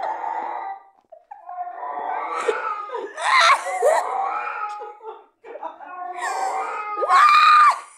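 People laughing and shrieking in three bursts with short breaks, ending in a long high-pitched squeal.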